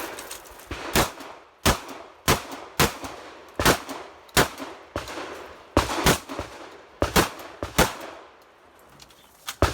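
Remington 870 pump-action shotgun fired in a fast string: about a dozen loud shots, roughly half a second to a second apart, each with a short ringing tail, then a pause of nearly two seconds before one more shot near the end.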